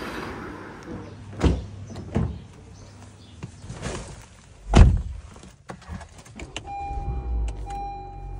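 A few light knocks, then a heavy thump of a Honda Civic's door shutting, the loudest sound. About two seconds later a steady electronic chime tone sounds inside the car, broken by short gaps.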